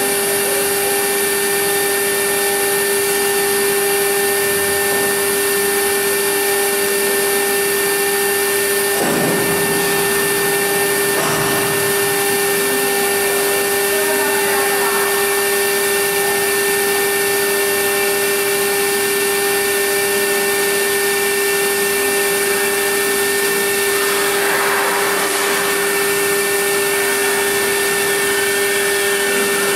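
Stone CNC router spindle running with a steady high whine while its engraving bit cuts into a ceramic tile, the cutting noise swelling a few times.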